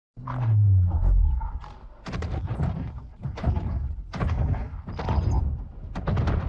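Kong sound effect: a deep, falling growl, then a run of heavy thuds and huffs coming roughly every half second to second.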